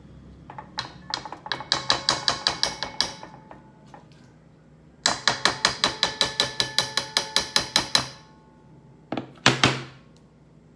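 A spoon striking a pot in quick, even taps, about five or six a second with a ringing note, in two runs of a few seconds each, followed by two louder knocks near the end.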